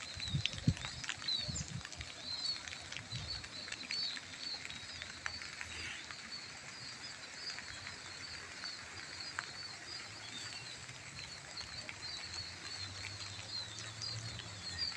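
Light drizzle pattering, with many small high chirps running on throughout. A few low thumps come in the first few seconds.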